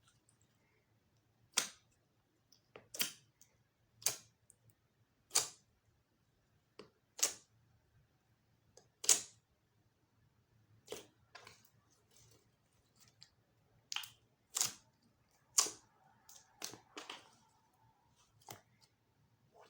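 Clear slime being pressed and folded, giving sharp, irregular clicking pops of trapped air about every second or two.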